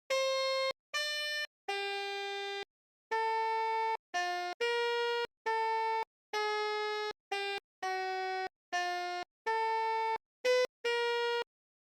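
Basuri telolet multi-tone bus horn playing an ice cream vendor's jingle. It sounds one buzzy horn note at a time, each held about half a second to a second, with short gaps between them. The pitch steps up and down to make the tune.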